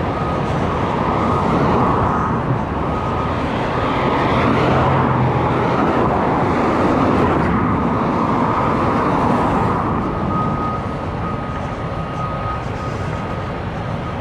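Steady road and engine noise of a car being driven, with a faint steady whine coming and going.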